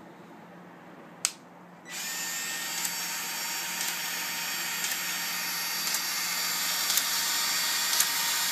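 Battery-powered PEX expander tool: a sharp click, then from about two seconds in its motor runs steadily with a faint tick about once a second.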